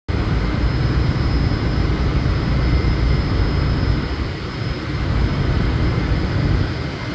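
Offshore platform's gas flare burning with a steady low roar, as a large flow of gas is sent to the flare while the platform is shut down.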